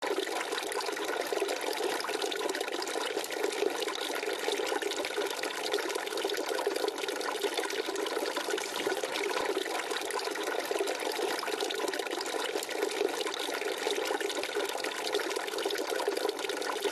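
Water from an outdoor wall fountain's spout falling into a small bowl and spilling from it in thin streams into the basin below: a steady splashing trickle.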